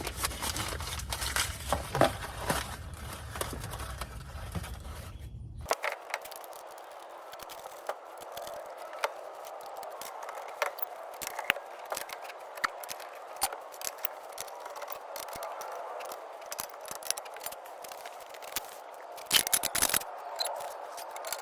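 Tools and brake parts being handled during a brake pad change: scattered clicks and scrapes. For the first six seconds they sit over a low rumble; then the sound changes abruptly to a steady hiss with many small clicks, and a loud burst of clatter comes near the end.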